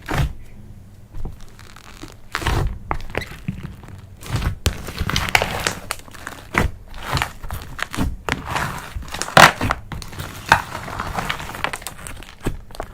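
Irregular crinkling and crackling, with sharp clicks and light knocks, from slime ingredients and containers being handled during slime preparation; the loudest knock comes about nine and a half seconds in.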